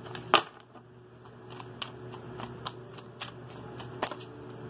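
A deck of tarot cards being shuffled by hand: a sharp click about half a second in, then a run of light card flicks, several a second.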